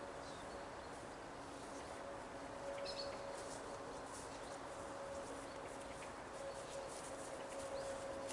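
Quiet outdoor farm ambience: a faint steady hum, a short bird chirp about three seconds in, and soft rustling from about halfway on.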